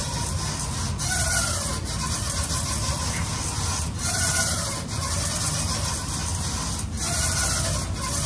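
Seated chest-supported row machine worked in slow reps: a rasping squeak comes once per rep, about every three seconds, over a steady low hum.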